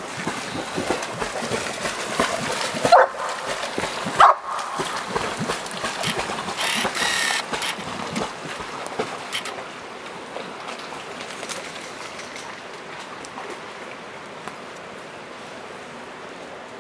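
Footsteps through forest brush and twigs, with two short dog barks about three and four seconds in; later a steady rush of flowing river water.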